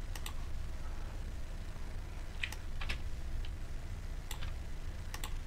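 Scattered clicking at a computer's mouse and keyboard: about eight light, sharp clicks, some in quick pairs, over a steady low hum.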